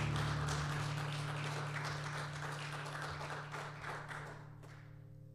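Congregation applauding at the end of a song, the clapping dying away about four and a half seconds in, while a held low note from the instruments lingers underneath.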